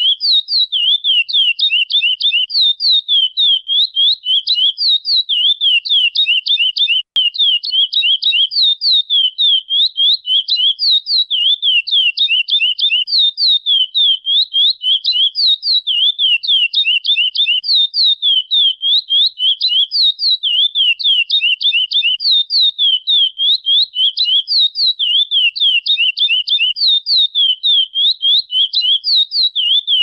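Curió (chestnut-bellied seed finch) singing: a loud, unbroken run of high whistled notes, each swooping down and back up, about three a second, with one brief break about seven seconds in.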